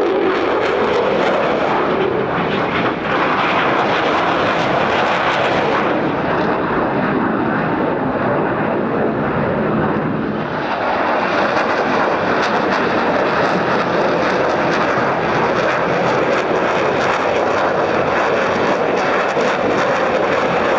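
Mitsubishi F-2 fighter jet noise, the single F110 turbofan running at high power as the aircraft flies past: a loud, continuous rushing noise. It eases slightly about ten seconds in, then swells again with a crackling edge.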